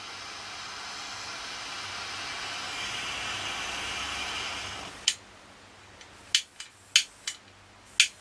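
Butane jet lighter's flame hissing steadily as it heats shrink tubing over a soldered joint, cutting off about five seconds in; then a click and several more sharp clicks.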